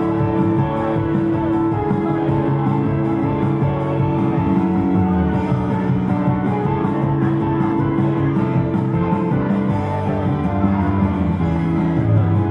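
Loud, steady pop-rock music with electric guitar, the recorded track that an idol dances to on stage.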